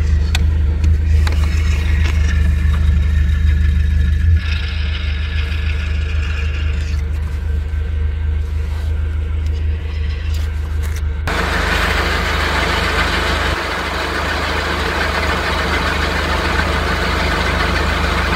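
Nissan Platina engine running steadily while the clutch pedal is pressed, with the noise of a worn clutch release (throw-out) bearing that needs replacing. A louder, even rushing noise sets in suddenly about two thirds of the way through and carries on.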